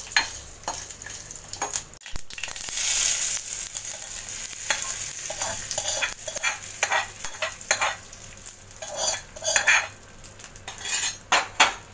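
Hot oil tempering of mustard seeds, dried red chillies and curry leaves sizzling and crackling in a small pan, with a steel spoon stirring and scraping against the metal. Partway through, the tempering is scraped out of the pan onto the chutney.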